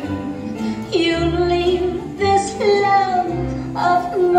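Animatronic bear show soundtrack: a woman's voice sings a slow song with vibrato over a band, sliding down in pitch at the end of each phrase.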